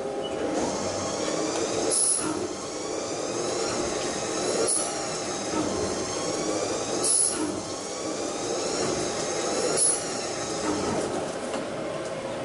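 CNC machine tool cutting a metal cylinder: a high cutting whine with several overtones that bends up and down in pitch and swells four times, about every two and a half seconds, over the machine's steady hum.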